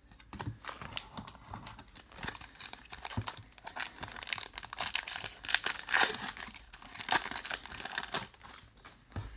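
Crinkling of a Topps Star Wars Galaxy trading-card pack's foil wrapper as it is handled and worked open by hand. It is a dense run of crackles, loudest about halfway through.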